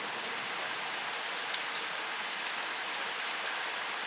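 Heavy rain pouring steadily, with faint scattered drop ticks in the hiss.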